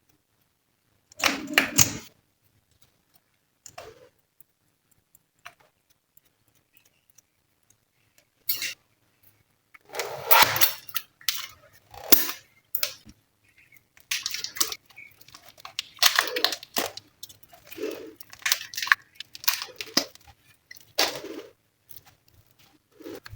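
Slime being squished and kneaded by hand: irregular bursts of sticky crackling and popping, one about a second in, then few for several seconds, then many close together from about halfway on.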